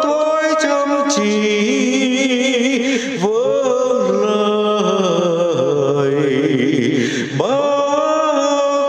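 A solo voice singing a slow Vietnamese song with vibrato over held accompanying tones, new phrases starting about three and seven seconds in.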